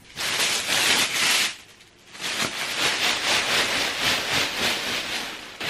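Tissue paper rustling and crinkling as a coat is pulled out of its wrapping in a gift box. It comes in two stretches with a short lull about a second and a half in.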